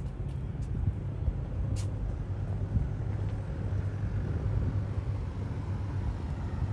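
Steady low engine hum of a motor vehicle running, with a brief sharp click about two seconds in.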